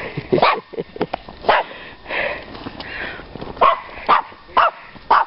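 A dog barking in short single barks: a few in the first second and a half, then a quicker run of four near the end.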